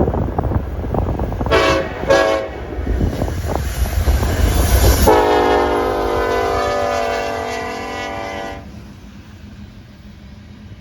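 Locomotive air horn sounding as a crew's greeting: two short blasts about a second and a half in, then one long blast of about three and a half seconds that cuts off suddenly. Underneath is the rumble and wheel clicking of the passing train, fading after the horn stops.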